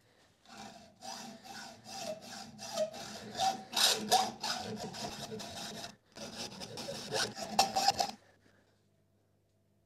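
Hand hacksaw cutting through a 1-inch by 2-inch mild steel bar held in a vise, in quick back-and-forth rasping strokes. There is a short break about six seconds in, and the sawing stops about eight seconds in.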